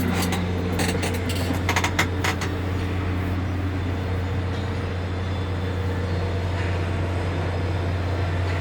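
Steady low machine hum from the tower crane's cab machinery, with a few sharp clicks in the first couple of seconds.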